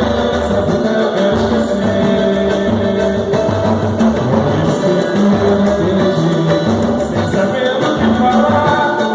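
A live samba band playing a song: singing over instruments and a pulsing low percussion beat.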